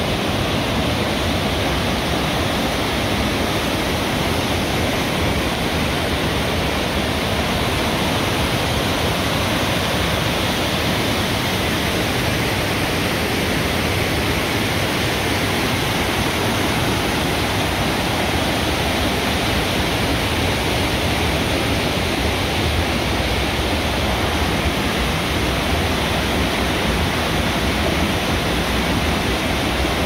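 Waterfall cascading down a narrow rock gorge: a steady, loud rushing of white water.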